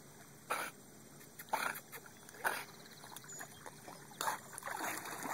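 Staffordshire terrier swimming, blowing out short puffs of breath about once a second as it paddles. Near the end, splashing and sloshing water rise as it wades into the shallows.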